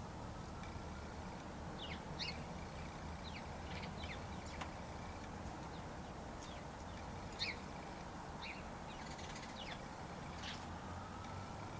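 Birds calling: short, high chirps scattered through, about a dozen, over a steady low background hum.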